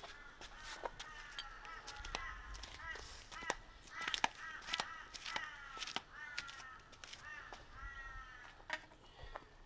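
A bird calling over and over in runs of short, pitched, slightly falling notes, mixed with sharp clicks and knocks of metal parts being handled and set down, the loudest clicks about three and a half and four seconds in.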